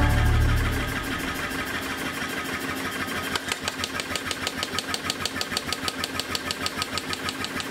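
Self-contained air-driven power hammer running and striking hot steel held in tongs: a steady rhythm of blows several times a second, growing louder about three seconds in. Music fades out at the start.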